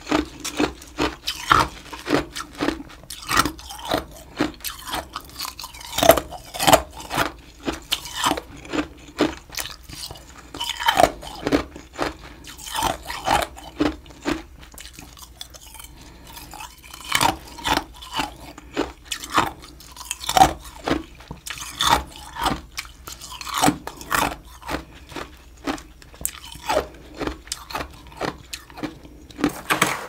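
Crunchy humidifier frost from a mini freezer being bitten and chewed, a close run of crisp crunches about twice a second that thins out for a few seconds around the middle.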